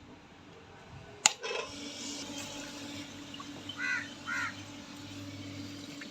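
A sharp click about a second in, then water running with a steady hum and hiss. A crow caws twice about four seconds in.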